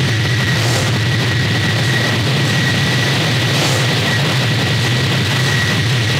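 Experimental noise music: a loud, steady wall of hiss over a low hum, with a thin whistling tone held unchanged high above it.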